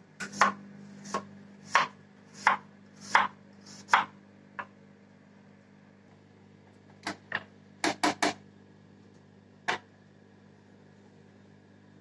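Kitchen knife chopping vegetables on a wooden cutting board: a run of sharp knocks roughly every half second to second, a pause, then a quicker cluster of cuts about eight seconds in and one last cut near ten seconds.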